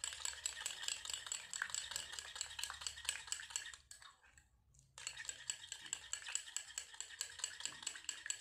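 A metal spoon stirs a mixture of potato juice and grated soap in a glass bowl, clinking and scraping against the glass in quick, even strokes. The stirring stops for about a second about four seconds in, then carries on.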